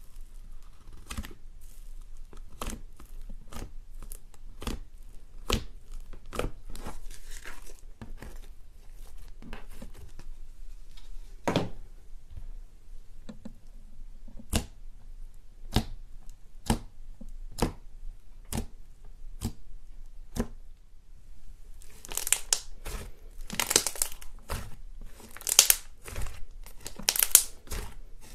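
Fingers poking and pressing thick white slime, each press making a sharp pop or click, about one a second. Near the end, fluffy slime is stretched and pulled apart with a dense crackling, tearing sound.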